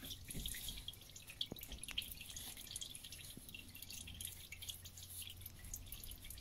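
Faint, irregular drips of old engine oil falling from the 1.2 PureTech engine's drained sump into the drain container, with soft rag wiping around the sump.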